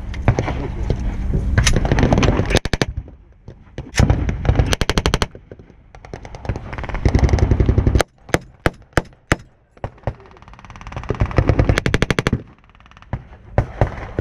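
Machine guns firing blanks in several short, rapid bursts, loud and close, with about five separate single shots between them about two-thirds of the way through and a constant noise of distant battle gunfire behind. The nearest gun is an MG34 fed from a drum magazine.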